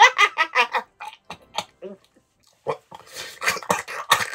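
A man's theatrical villain laugh: a fast run of loud "ha"s in the first second, then after a short pause more broken bursts of laughing and breath near the end.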